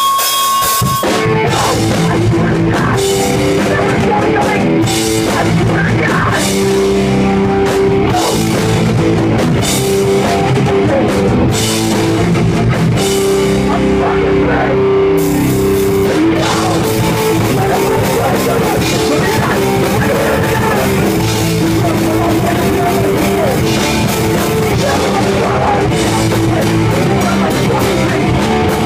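A live rock band playing loud and fast, with distorted electric guitars, bass and a pounding drum kit. The full band comes in about a second in, after a lone guitar line.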